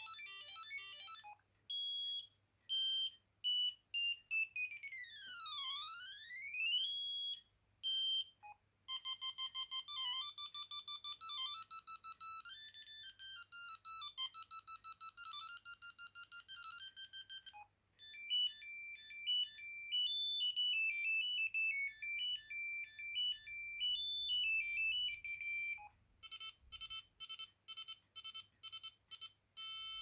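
Sendo S330 mobile phone playing its built-in ringtones through its small speaker, one short preview after another as the list is scrolled, each cut off when the next begins. The tones are electronic: short beeps, a sweep that falls and rises about five seconds in, two longer melodies, and fast repeated pulses near the end.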